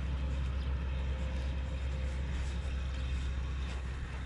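Steady low rumble with an even hiss of outdoor background noise, no speech.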